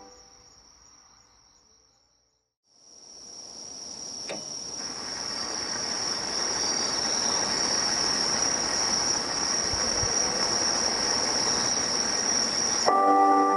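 Insects chirring steadily in a night-time ambience with a constant high trill over a background hiss. A chime melody fades out at the start, and an outdoor loudspeaker chime melody cuts back in abruptly near the end.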